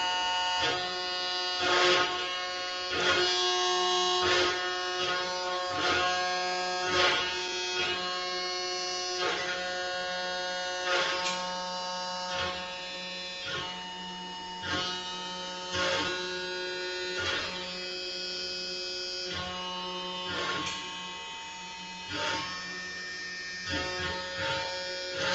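SilverBack benchtop CNC router carving pine: the router motor runs with a steady whine while the stepper motors hum in tones that shift with each move of the gantry. Short rasps come roughly every second as the bit cuts and changes direction.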